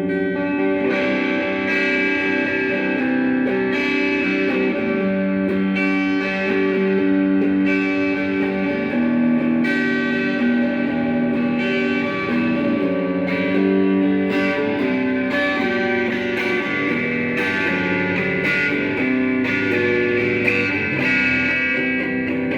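Electric guitar played through a Joyo AC Tone JF-13 overdrive pedal, a Vox AC30-style amp-in-a-box, chords and single notes ringing out and changing every second or two.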